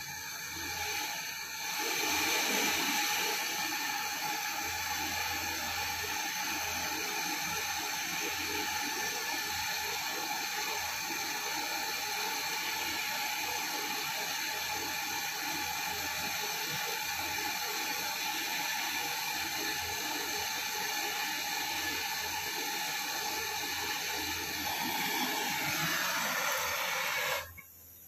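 Butane canister torch flame hissing steadily while brazing a copper pipe joint. It gets louder about two seconds in and cuts off abruptly near the end.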